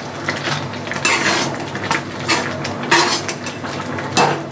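Steel ladle stirring wet carrot halwa in a metal pan, scraping and knocking against the pan several times about a second apart, with a squelch from the milky mixture as it is turned.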